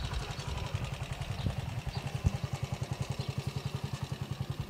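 Small motorcycle engine idling with a steady low putter of about ten beats a second, with a couple of short knocks in the first half.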